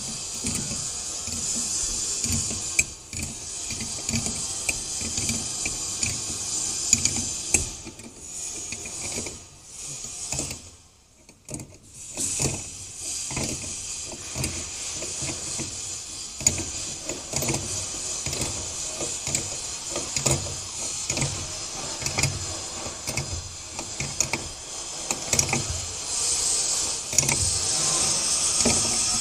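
Metal clinks, scrapes and knocks of a wrench working the nuts and washers on a stainless steel pipe flange as it is bolted to a water tank panel, over a steady hiss.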